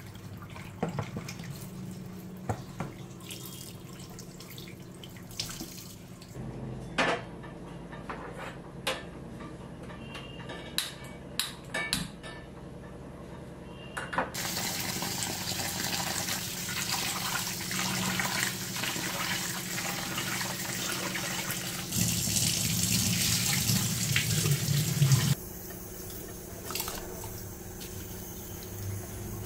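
Tap water running into a steel sink while pieces of fish are rinsed by hand in a plastic tub, with scattered clinks and knocks of kitchen utensils. A louder, even rushing of water fills the second half and stops suddenly near the end.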